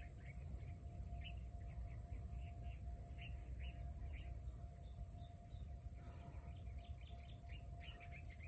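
Small birds chirping in quick, repeated short notes, over a steady low rumble and a thin, steady high-pitched whine.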